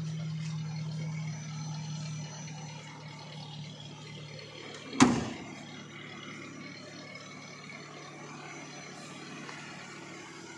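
A single loud slam about five seconds in, the Maruti Gypsy's rear door being shut, over a steady low hum.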